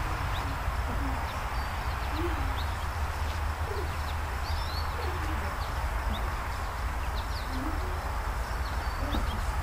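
Outdoor birdsong ambience over a steady hiss and low rumble: faint, brief high chirps from small birds, and soft low hoot-like calls about every second or so.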